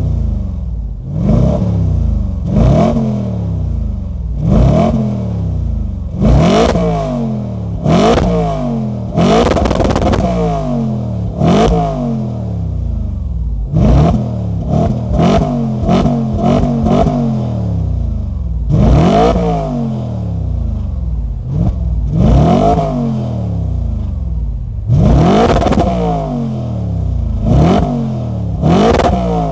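Audi RS4 B8's naturally aspirated 4.2 V8 FSI engine being blipped repeatedly at standstill: about sixteen revs, each rising and dropping back to idle, some in quick pairs. The exhaust note is rough and deep.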